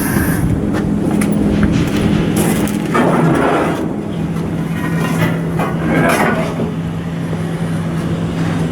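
Shipyard machinery running with a steady low hum, with short noisy surges about three and six seconds in and scattered metallic knocks.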